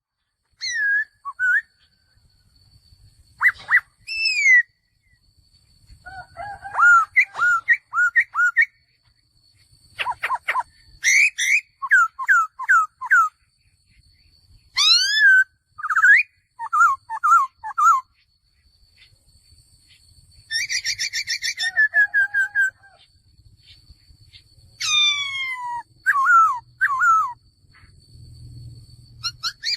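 Male laughingthrush singing: loud phrases of clear whistled notes and sweeping glides, one burst every three to five seconds with short pauses between.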